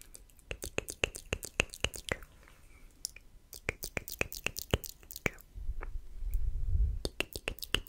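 Close-miked ASMR mouth sounds: rapid wet tongue-and-lip clicks of the "tk tk" kind, several a second, in runs broken by a short pause. Late on, a low muffled rumble on the microphone comes in for about a second before the clicking starts again.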